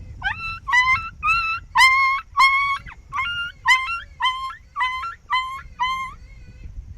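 A run of about a dozen sharp, high yelps in quick succession, each starting with a quick upward squeal and then holding its pitch.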